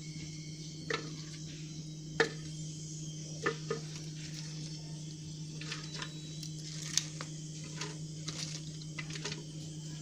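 Vegetables being put into a blender jar: a few light knocks in the first four seconds, then softer scattered ticks and rustles. A steady low hum runs underneath.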